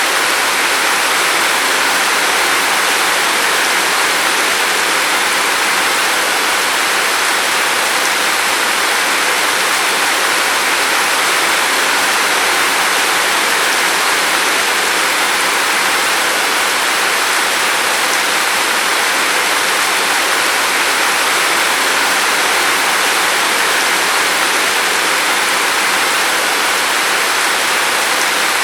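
Steady rain falling, a constant even hiss with no single drops standing out.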